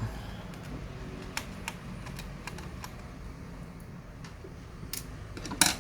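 Scattered small clicks and taps from handling a ThinkPad T410s laptop's screws and casing during disassembly, over a steady low hum, with a louder cluster of clicks near the end.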